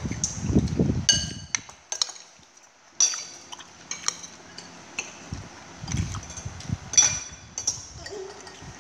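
Metal spoon scraping and clinking against a ceramic plate while scooping rice and curry, with a few sharp ringing clinks and two spells of low muffled thumping.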